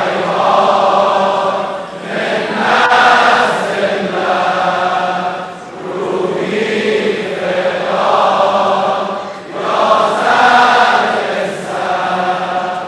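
A large crowd of men singing a religious anthem in unison, in repeated phrases of about two seconds with brief dips between them.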